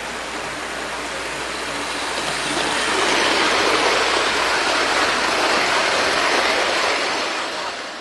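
Hornby OO gauge model train running past close by, its wheels and motor making a rushing rumble on the track that swells to its loudest about halfway through and then fades as it moves away.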